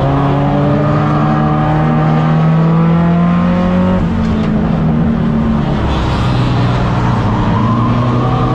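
A race car's four-cylinder engine heard from inside the cabin under racing load. The engine note climbs for about four seconds, drops suddenly, then holds and rises again near the end, with other cars' engines around it.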